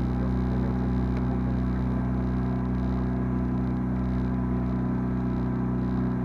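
A sailboat's auxiliary engine running at a steady pace, giving an even, unchanging hum.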